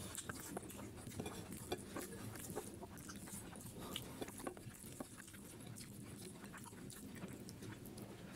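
Quiet close-up eating sounds: scattered soft, wet clicks and smacks from chewing and from fingers mixing rice into duck feet curry.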